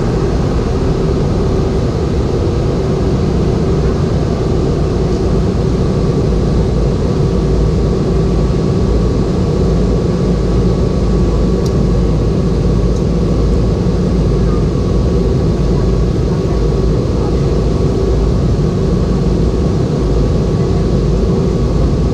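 Steady in-flight noise inside a Boeing 717: rushing air over the fuselage mixed with the hum of its two rear-mounted Rolls-Royce BR715 turbofans. It is heaviest in the low end, with a faint steady tone on top, and stays unchanged throughout.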